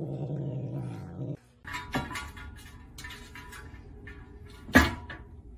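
A cat growling low and steadily for about a second and a half, cut off abruptly. Then a few clicks and knocks, and one loud thump near the end.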